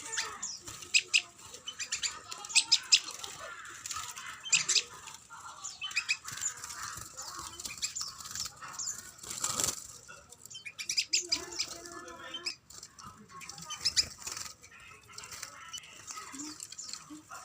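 Several small cage songbirds giving short, sharp, high chirps, scattered through the whole stretch, with one brief rustling burst a little past the middle.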